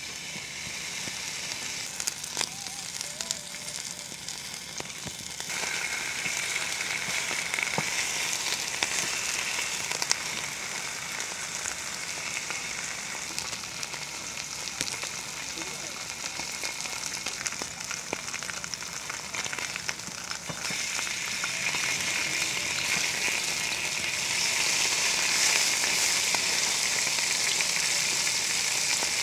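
Pork belly slices sizzling on a hot griddle over a wood-fired camp stove, a dense hiss with scattered pops. The sizzle grows louder about five seconds in and again about twenty seconds in.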